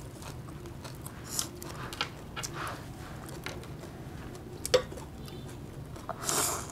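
Chewing and crunching of raw leafy greens, with scattered soft clicks, a sharper click just before five seconds in and a short rustle near the end.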